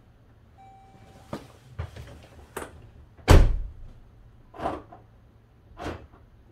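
Power door locks on a Jeep Grand Cherokee being cycled to test a newly reinstalled rear door latch: a series of sharp mechanical clacks from the lock actuators, about six in all, the loudest about three seconds in. A short electronic tone sounds briefly near the start.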